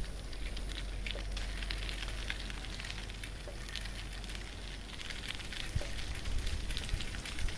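Breeze rustling tree leaves: an irregular crackly hiss with a steady low wind rumble on the microphone underneath.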